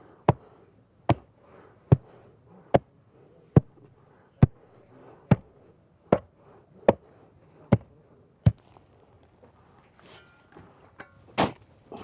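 Hand-made wooden tamper, a flat board on a wooden handle frame, thumping down on loose soil backfill eleven times at about one blow every 0.8 seconds: gentle compaction by hand. Near the end, a single sharper, louder scrape of a steel shovel digging into the soil.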